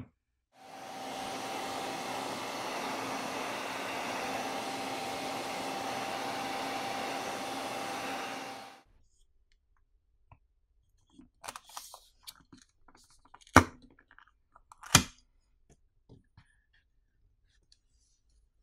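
Hairdryer blowing steadily for about eight seconds, heating a phone's plastic backplate to soften the adhesive underneath, then switching off. After it come scattered light clicks and two sharper snaps as a pry tool works the backplate loose.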